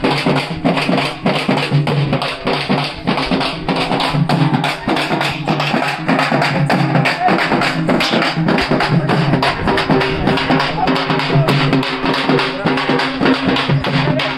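Several large frame drums (dappu) beaten with sticks in a fast, steady rhythm of several strokes a second, with voices and a steady low tone underneath.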